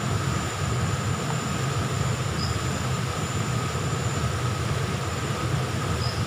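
Steady rushing of a fast-flowing, muddy forest river, a constant low rumble with a faint high tone over it.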